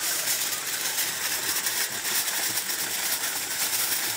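Aluminium foil crinkling and rustling steadily as hands fold and crumple it into a parcel.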